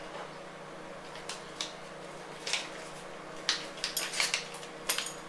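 Plastic parts bags being handled: crinkling and light clinks of the small metal parts inside, in short scattered bursts that come thicker in the second half.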